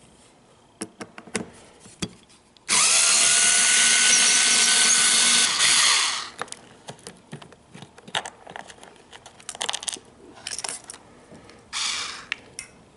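Cordless power screwdriver running steadily for about three seconds, backing out the screw that holds a ground wire, its pitch rising a little as it spins up. Afterwards come light clicks and a few short noises.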